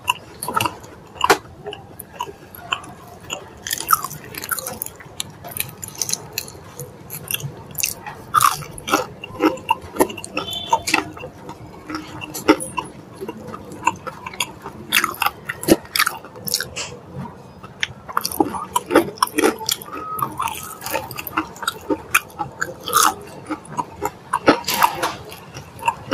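Close-up eating sounds of crispy fried chicken wings being torn apart, bitten and chewed. Many sharp, irregular crackles and clicks of the crunchy coating, along with mouth sounds.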